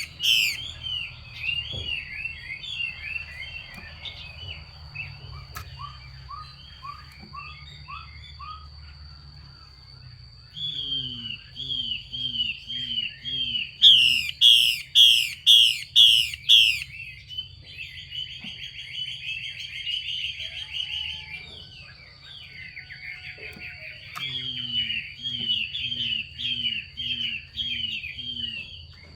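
Female Chinese hwamei giving its 'xùy' calls: phrases of short, repeated down-slurred notes. About halfway through comes a loud run of harsh rasping strokes, about two a second. These calls are used to excite male hwameis into song.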